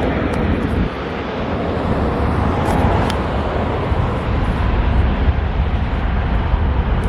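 Loud, steady rushing jet-engine noise from a passenger plane passing low overhead on takeoff.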